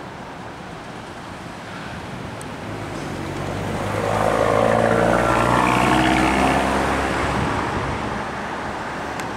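Blue Angels F/A-18 Super Hornet jets passing in formation: a jet engine roar that builds over a few seconds, is loudest in the middle, then eases off toward the end.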